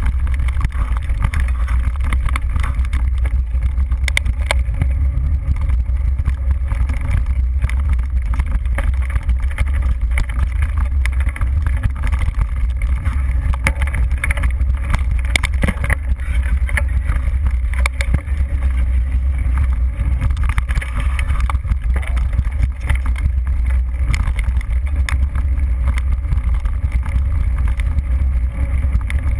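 Mountain bike ridden over a rough dirt trail, heard through a bike-mounted GoPro: a steady low rumble of wind and vibration, with scattered short rattles and clicks from the bike and mount jolting over the ground.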